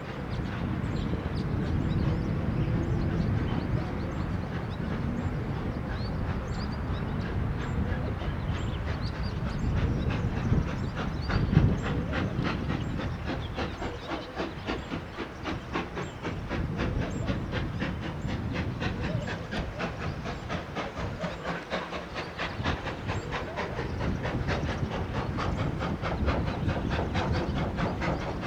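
Steam-hauled passenger train, an ex-SAR Class 19D locomotive with its coaches, passing with steam hissing. A loud knock comes near the middle, then the wheels click over the rail joints in a rapid, regular rhythm.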